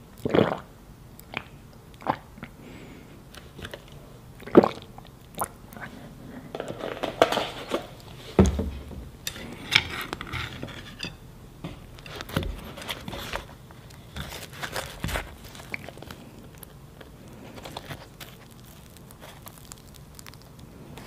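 Close-miked eating sounds of a person chewing and swallowing, with sharp mouth clicks now and then and quieter gaps between.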